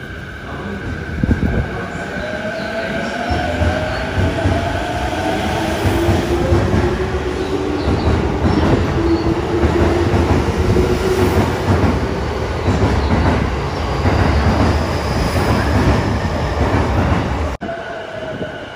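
Tokyo Metro Chiyoda Line subway train pulling out of the platform, its motors whining higher as it gathers speed, with wheel and rail noise growing as the cars pass. The sound drops off abruptly near the end.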